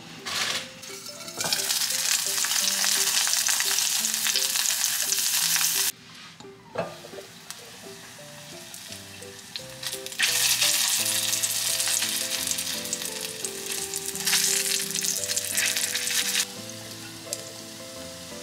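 Glutinous rice-cake balls frying in hot oil in a pan. The sizzle comes in two long stretches, each cutting off suddenly: one ends about six seconds in, the other near the end. Soft background music with a simple melody plays underneath.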